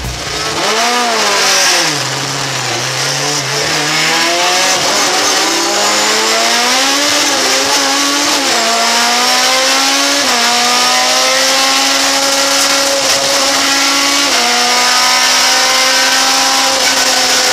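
In-car sound of a 2-litre four-cylinder sports sedan racing engine blipped once, then pulling away and climbing through the gears. The pitch rises and drops back with each upshift, several times, before settling to a steadier note, with a constant hiss over it.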